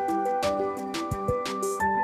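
Background music: a melody over held notes with a steady percussion beat.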